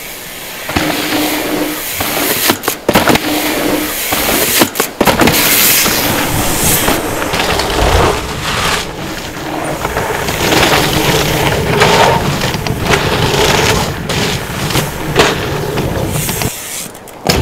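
Mountain bikes ridden fast on a dirt bike-park trail: knobby tyres rolling and skidding on dirt, with a run of sharp thuds and rattles from jumps and landings a few seconds in.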